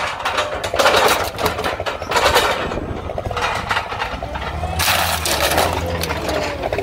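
Diesel engine of a Cat 262D skid steer running steadily under load as its pallet forks press on and drag an old television over dirt. Several loud bursts of crunching and scraping come through over the engine.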